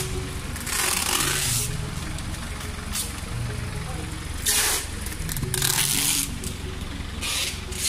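Plastic stretch wrap on packed sacks and cartons rustling and crinkling as they are handled, in several short bursts, over a steady low hum and faint voices.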